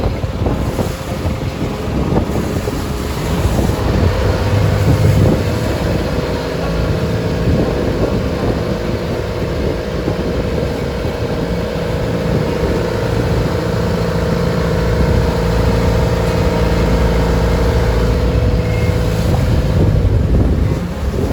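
Engine of a wooden passenger boat running steadily with a constant hum, under wind buffeting the microphone and the rush of waves against the hull.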